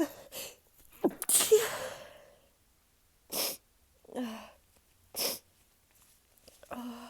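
A woman sneezing: one loud sneeze about a second in, with a sharp start and a breathy tail. Several shorter, quieter breathy sounds follow about a second apart.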